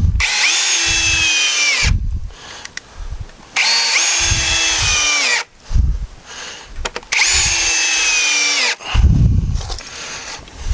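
Cordless drill driving screws into western red cedar boards: three runs of about a second and a half each, the motor's whine sagging a little in pitch as each screw draws in before the trigger is released.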